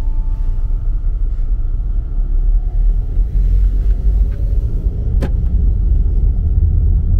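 Car driving at road speed: a steady low rumble of road and engine noise, with one sharp click about five seconds in.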